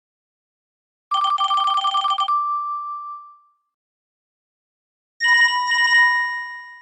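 Panasonic KX-TGA682EX cordless phone handset playing its built-in electronic ringtones. A short trilling ring comes about a second in and rings out. About four seconds later a different ring pattern follows in two quick parts, fading near the end.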